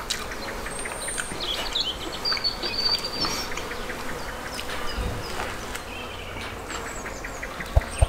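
Small birds chirping in short high calls over a steady insect buzz, with a low thump near the end.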